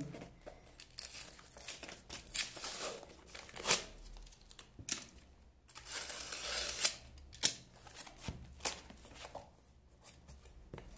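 Cardboard box being cut open with a utility knife: the blade rasps through tape and cardboard in irregular strokes, with tearing and rustling and a few sharp clicks.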